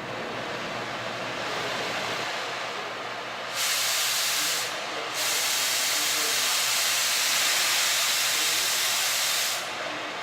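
Oxy-acetylene cutting torch flame hissing steadily; about three and a half seconds in a much louder, higher gas hiss cuts in, breaks off for a moment, then runs on until it stops sharply shortly before the end.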